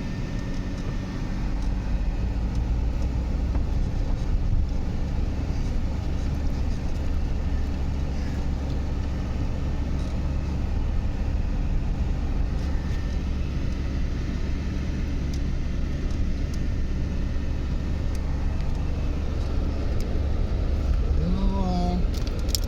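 Motor vehicle running steadily, a continuous low engine and road rumble with faint steady hum tones above it. A short voice is heard about a second before the end.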